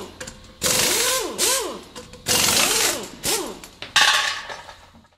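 Electronic logo-sting sound effects: three glitchy noise bursts with swooping synth tones that rise and fall in pitch, each fading away, one about every second and a half, cutting off near the end.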